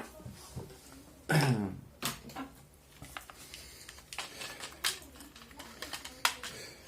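Scattered clicks and taps of things being handled on a workbench, with a short vocal grunt or throat sound about a second in.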